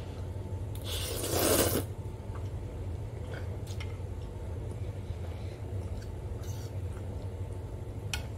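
A slurp of noodles sucked in from a fork, a noisy burst a little under a second long about a second in. A few faint clicks follow over a steady low hum.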